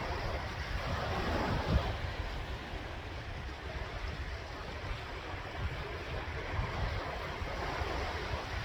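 Sea waves washing on the shore in a steady wash, with one wave swelling and breaking about two seconds in.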